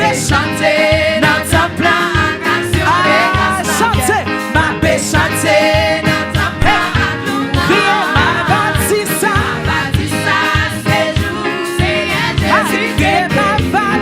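Gospel praise singing with live band accompaniment and a steady drum beat.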